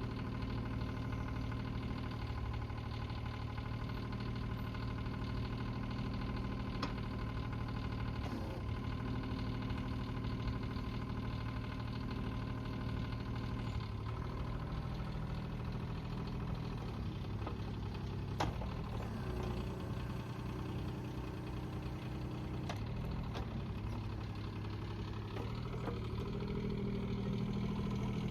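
Bobcat E20 mini excavator's diesel engine running steadily, its pitch shifting a few times, with a single sharp click about eighteen seconds in.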